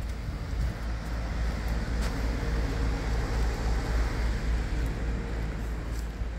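Wind buffeting a phone's microphone outdoors: a deep, unsteady rumble with a hiss over it, and a faint tick about two seconds in.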